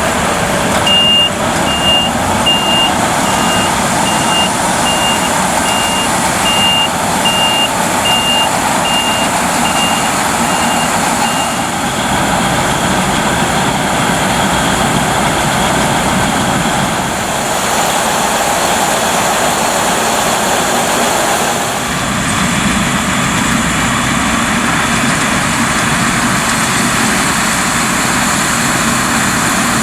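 Claas Lexion 770 TerraTrac combine harvesting corn: its Mercedes-Benz OM 502 LA V8 engine and threshing gear run steadily. For the first ten seconds or so, a reversing-type electronic warning beeper sounds over the machine about once every 0.7 s, then stops.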